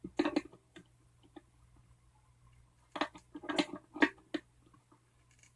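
Short clicks and scrapes of a wrench turning the retaining nut on a ukulele's endpin output jack to tighten it, in two bursts with a pause between.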